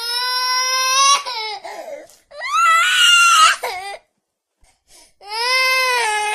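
A baby crying: three long, high-pitched wails separated by short pauses.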